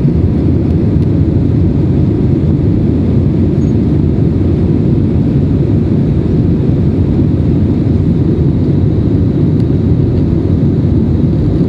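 Airbus A320 cabin noise heard from a rear window seat: a steady, deep drone of the twin jet engines and rushing airflow as the airliner climbs after take-off.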